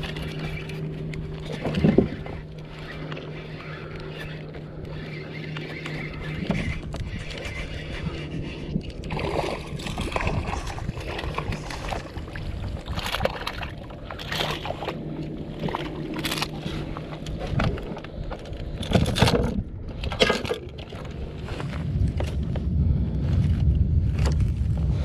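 Water sloshing and gurgling against a plastic fishing kayak's hull, with scattered knocks and clicks from gear being handled, over a steady low hum. A louder low rumble comes in near the end.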